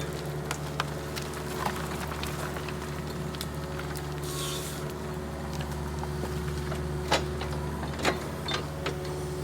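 Mini excavator's diesel engine running steadily, with a brief hiss midway and a few sharp knocks in the second half.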